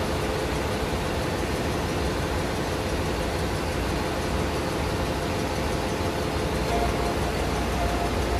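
Engine-room machinery of a ship running: a loud, steady din with no change in pace.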